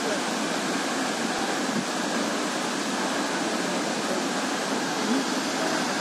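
A high waterfall plunging over a rock cliff into the pool far below, heard as a steady, even rush of water.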